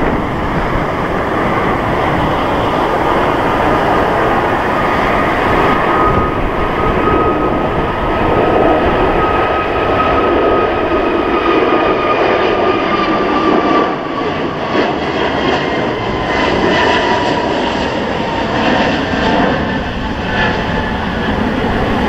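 Airbus A321LR airliner's twin jet engines running at takeoff power as it rolls, lifts off and climbs out: a loud, steady jet noise. A high whine runs through it and slowly falls in pitch through the middle.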